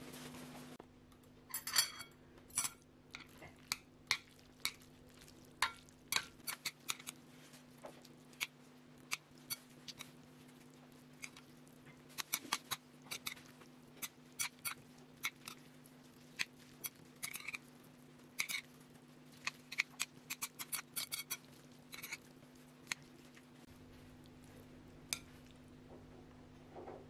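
Metal chopsticks clicking and scraping against a ceramic bowl as instant noodles are tossed with sauce: a string of irregular sharp clicks, over a faint steady hum.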